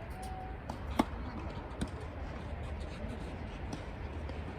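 Outdoor background with a steady low rumble, a brief bird-like chirp at the start, and two sharp knocks, the louder one about a second in and a softer one a little under a second later.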